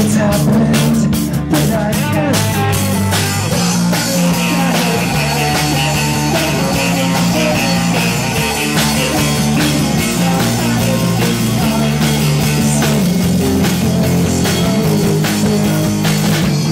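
A rock band playing live and loud: electric guitars, electric bass and a drum kit keeping a steady beat.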